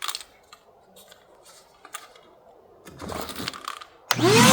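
A few faint clicks and a short rustle of handling, then near the end a replacement vacuum cleaner is switched on, its motor starting abruptly with a whine that rises quickly as it spins up and then holds steady; it is loud.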